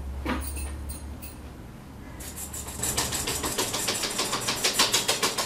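Gas stove's spark igniter clicking rapidly and evenly, about four or five clicks a second, starting about two seconds in.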